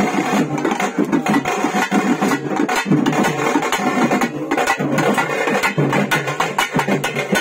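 Fast, continuous ritual drumming on a stick-beaten drum: a dense, unbroken run of strokes.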